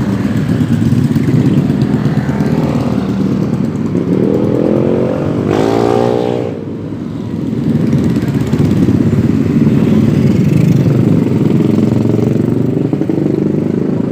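Motorcycle engines running with a steady rumble; about four seconds in, one bike revs up, rising in pitch as it comes close, then cuts away sharply a couple of seconds later.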